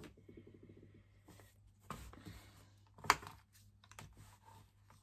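Quilting tools being handled on a cutting mat: small clicks and taps as an acrylic quilting ruler is laid on fabric and a rotary cutter is moved, with one sharper knock a little after three seconds.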